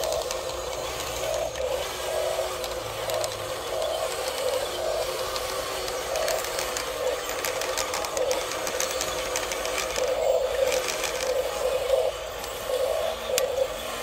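Electric motors and gearboxes of a Huina radio-controlled excavator whirring in short, repeated bursts as the boom and tracks move, with some light clicking and rattling partway through.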